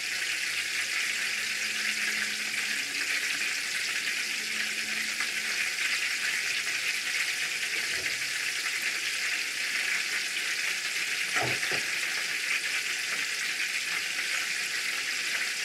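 Mushroom-filled rice paper wraps deep-frying in hot oil at medium heat: a steady, even sizzle.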